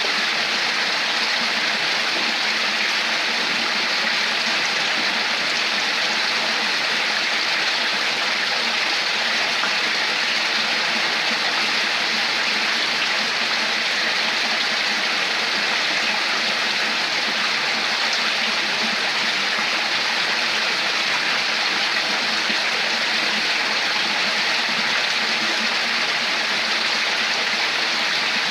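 Running water flowing and splashing steadily, like a stream or small waterfall, an even rushing without change.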